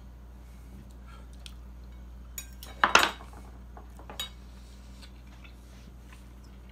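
A fork clinking and scraping against a plate a few times, loudest about three seconds in.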